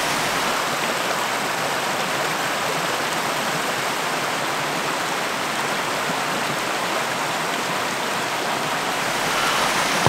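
Steady, even rush of fast-flowing stream water, running freely rather than frozen over.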